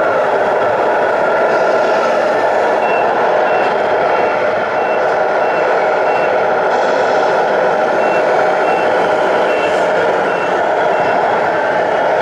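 Reversing beeper of a radio-controlled model truck's sound module, giving a regular series of short high beeps that starts about three seconds in and stops near the end, over a steady drone.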